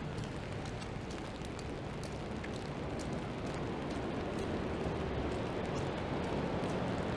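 Steady rain with many small drop ticks, over the low rumble and tyre hiss of traffic on a wet city street; it grows a little louder in the second half.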